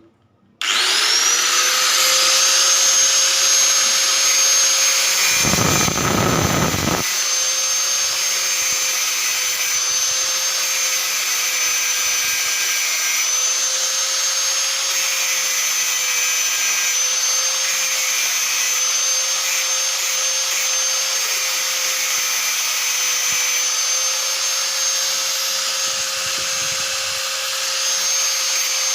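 Hand-held angle grinder switched on about half a second in, spinning up quickly and then running at a steady high whine. A brief low rumble comes around six seconds in.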